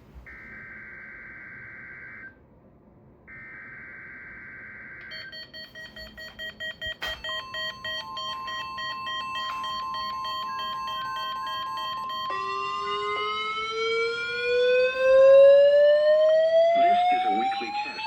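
NOAA Weather Radio Required Weekly Test received on a table of weather radios: three buzzy bursts of SAME digital header data, then the radios' alert alarms set off one after another. Rapid pulsing beeps start about five seconds in, a steady tone joins about two seconds later, and a siren with steadily rising pitch comes in past the midpoint, all sounding together and growing louder.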